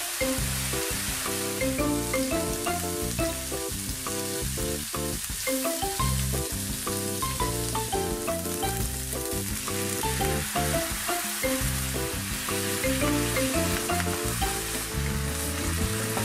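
Mixed ground beef and pork sizzling in a nonstick frying pan as it browns and gives off its fat, stirred with a wooden spatula. Light background music plays over it.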